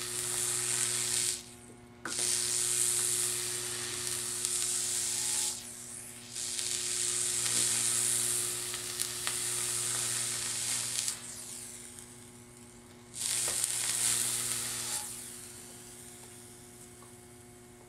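Electric stainless weld cleaner's wand, its chemical-soaked fiberglass tip rubbed along a TIG weld, sizzling as the current passes through the chemical to strip heat-tint discoloration. The sizzle comes in four stretches with short breaks as the tip is lifted and set back, then fades out, over a steady low hum.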